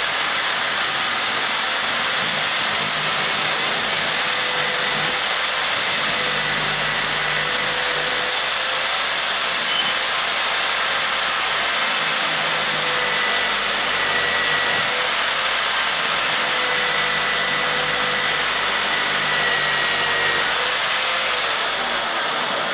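Electric drill clamped in a bench vise, spinning a wire wheel brush at a steady speed. The steel bristles scrub rust and grime off an old adjustable spanner held against the wheel.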